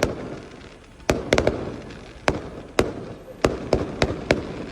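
Fireworks going off: about a dozen sharp bangs at irregular intervals, some in quick clusters, with a rumbling echo between them.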